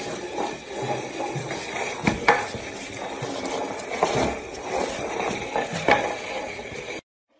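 Scraping and clattering on a tiled floor as a small dog drags a potted plant across it, with leaves rustling and a few sharp knocks.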